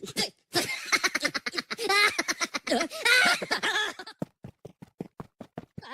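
A high, wavering voice giggling and laughing, followed by a quick run of short, sharp clicks or breaths near the end.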